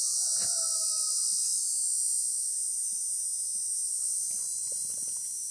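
Steady, high-pitched chorus of insects such as crickets, with a faint short tone that slides slightly down in the first second or so.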